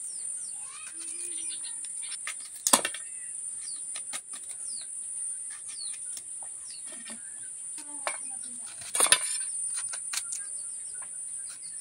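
Knife slicing pointed gourd: irregular sharp cuts, the loudest about three seconds in and again about nine seconds in. Birds chirp in short falling calls over a steady high-pitched drone.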